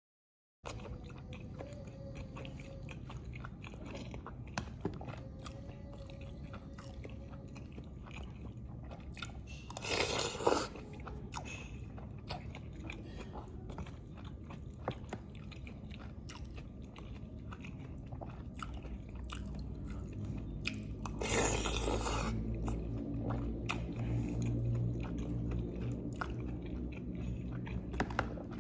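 Close-miked chewing and biting of lontong with green chili sauce, full of small wet mouth clicks. Two louder rushes of noise come about ten seconds in and again near twenty-one seconds.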